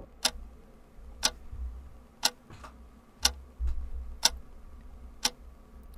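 Clock-tick sound effect, one sharp tick each second in step with a countdown, over a low steady hum.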